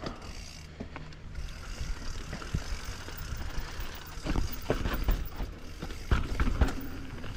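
Mountain bike rolling down a dirt trail: steady tyre and drivetrain rumble with rattling and knocks over bumps, growing louder and busier about four seconds in.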